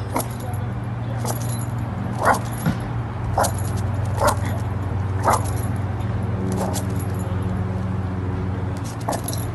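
Dog barking in short, sharp barks, about eight of them roughly a second apart, over a steady low hum.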